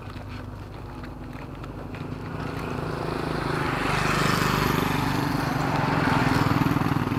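A motor engine running, growing louder over a couple of seconds and then holding steady.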